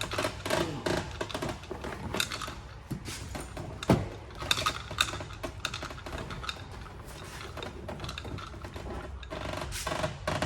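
Door trim panel of a 1990s Chevrolet Suburban being pried off, its plastic push-rivet clips clicking and the panel rattling in a run of small clicks, with one sharper pop about four seconds in.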